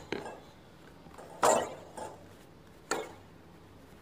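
A plastic food storage container with a snap-on lid knocking as it is handled and set on a kitchen shelf: a few dull knocks, the loudest about a second and a half in.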